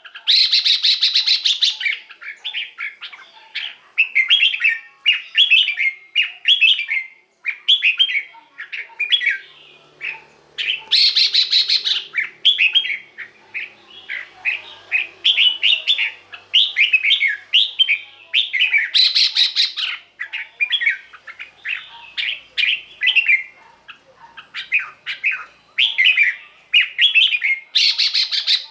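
Red-whiskered bulbul singing: quick, repeated short whistled phrases, one after another, with a louder, harsher burst about every eight seconds.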